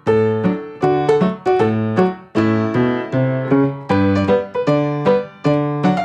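Background piano music: notes and chords struck in a steady rhythm, each ringing out and fading.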